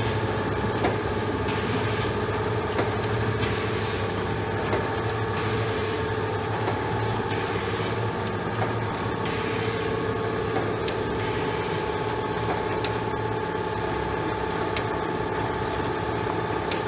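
Special Adhesive Process Machine MkIII F1, a sticky-note adhesive machine, running steadily in continuous production. It gives a constant mechanical hum with several steady tones and occasional short clicks.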